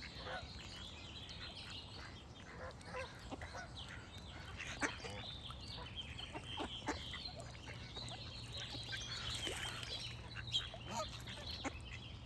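A flock of geese and ducks calling: honks and quacks in quick, irregular succession, with smaller birds singing alongside and a steady low hum underneath.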